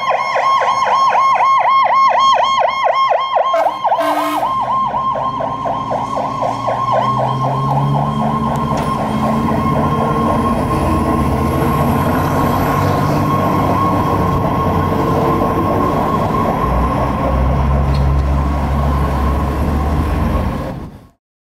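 Fire truck siren on a fast yelp, broken by a short horn blast about four seconds in. The siren then carries on over the low rumble of the truck's engine as the apparatus pulls away. The sound cuts off suddenly near the end.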